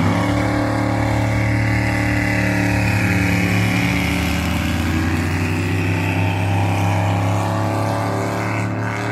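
A racing boat's engine running hard at speed: one loud, steady engine note whose pitch shifts slightly about four seconds in and fades a little near the end.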